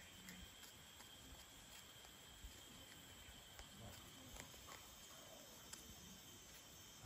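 Near silence: faint outdoor ambience with a thin, steady high insect drone and a few faint ticks.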